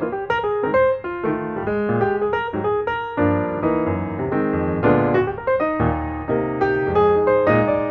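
Background piano music, many short notes over lower chords.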